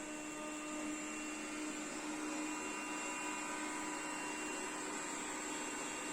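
Puppyoo R30 robot vacuum running on high-pile carpet, its suction motor and turbo brush at raised power. It makes a steady hum with a thin high whine, getting a little louder about a second in.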